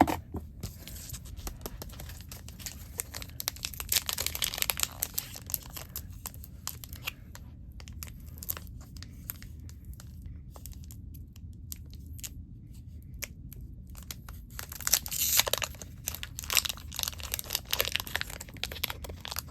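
Foil wrapper of a Pokémon booster pack being torn open and crinkled by hand, a crackling rustle that is loudest about four seconds in and again about fifteen seconds in.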